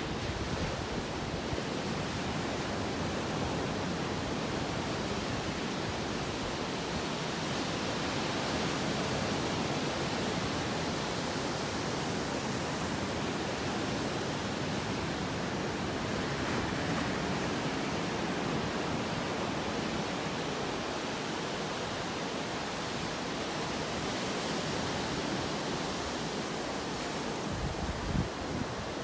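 Typhoon-driven surf breaking on the beach, a steady wash of noise, with a few low gusts of wind on the microphone near the end.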